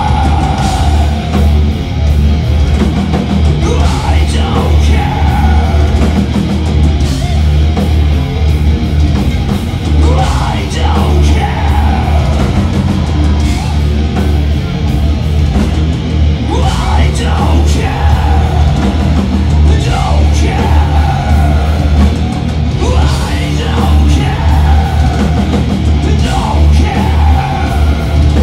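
Death metal band playing live: heavy distorted guitars, bass and drums, with the vocalist singing into the microphone.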